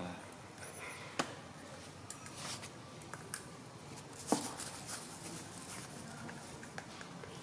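Quiet eating and handling sounds from a baby macaque biting and chewing a piece of fruit. A few sharp clicks stand out, the loudest about a second in and again about four seconds in.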